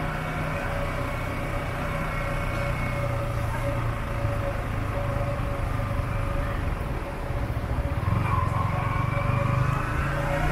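Motorbike ridden through city traffic: its small engine running steadily under the hum of surrounding cars, with the engine pitch rising near the end as it speeds up.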